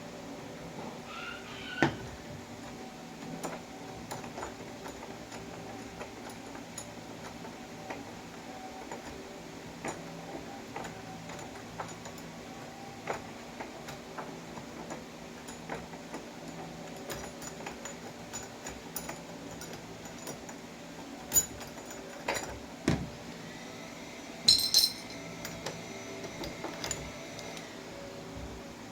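Small metal clicks and clinks of doorknob parts and screws being handled as the old lock assembly is taken apart, with a few sharper knocks and one brief ringing metallic clink near the end.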